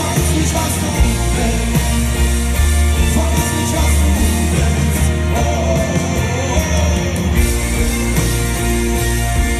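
Live pop-rock band performing on stage, with drums, bass and amplified guitars under a sung melody line.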